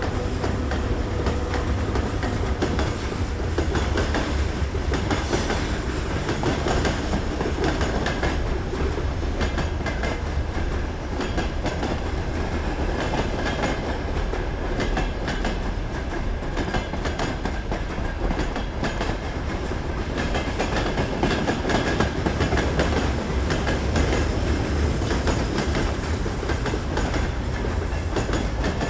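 Train cars rolling past at high speed: a steady heavy rumble of wheels on rails, with rapid clickety-clack of the wheels over the rail joints and a faint high whine in the second half.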